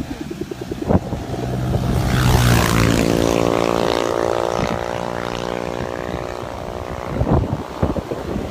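Humming drone of the sendaren, the bowed hummer strung on a large Javanese gapangan kite, swelling about two seconds in and fading near the end.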